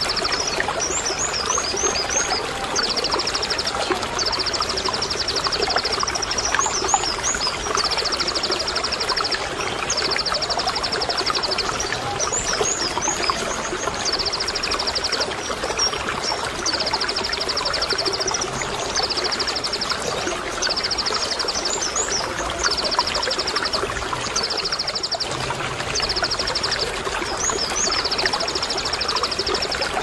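Konin sunbird singing its 'tembakan' song: short, very high rapid trills about a second long, repeated roughly every two seconds, with quick rising chirps between them. Steady trickling water runs underneath.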